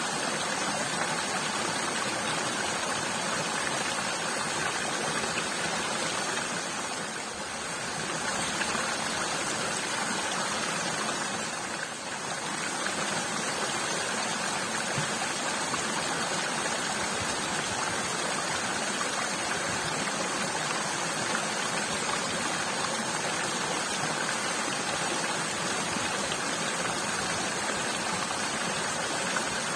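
Steady rushing of a stream or running water, an even wash of noise that dips briefly twice.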